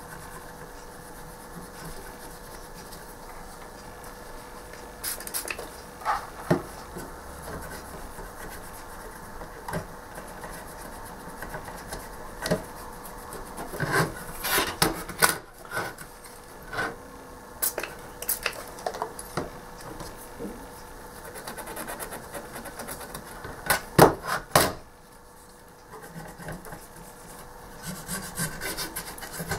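Cotton bud scrubbing the solder pads of a circuit board: scratchy rubbing strokes with scattered clicks, and a couple of sharper knocks late on.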